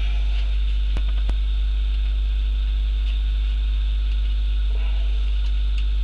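Steady low electrical mains hum, with a couple of faint clicks about a second in from the throttle cable being fitted at the carburettor linkage.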